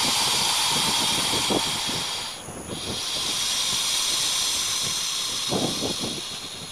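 Green anaconda breathing: a loud, long hissing breath breaks off about two seconds in, and a second long breath follows until near the end.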